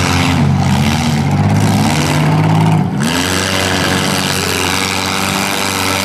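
Engines of compact demolition-derby cars, exhausts piped straight up through the hood, revving up and down over a steady din, with the pitch falling and rising several times.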